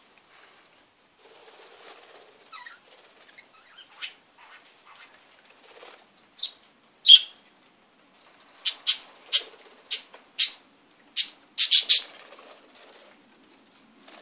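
Budgerigars chirping and fluttering their wings as they feed from a hand: two short chirps about halfway in, then a quick run of sharp, brief chirps and wing flaps over the next few seconds.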